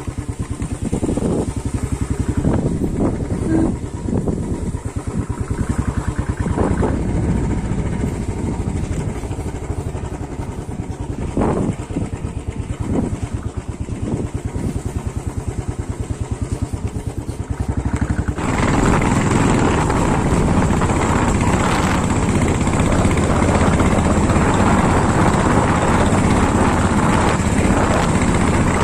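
A vehicle engine running steadily. About eighteen seconds in, a louder rushing noise comes in and continues.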